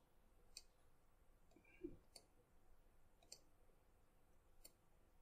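Near silence with four faint computer mouse clicks spread over a few seconds, and a faint soft low sound just before the middle.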